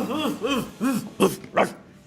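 Slot game's dog barking sound effect: a quick run of short woofs, then two sharper yaps.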